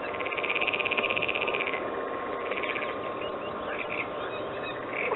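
Animal calls: a rapid, evenly pulsed high trill lasting about a second and a half near the start, a shorter trill about two and a half seconds in, and scattered short chirps over a steady background hiss.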